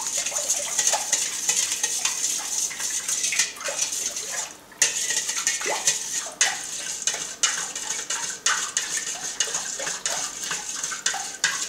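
A spoon stirring salt into water in a stainless-steel mixing bowl, clinking and scraping against the metal as it dissolves the salt into a brine, with a brief pause a little before halfway.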